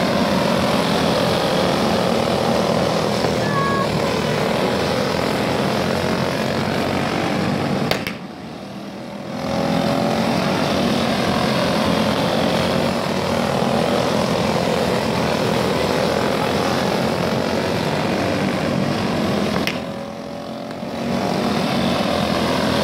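A pack of youth racing karts' small engines buzzing at race speed, the pitch of several engines gliding up and down as they pass and go through the turns. The sound drops off briefly twice, about eight and twenty seconds in.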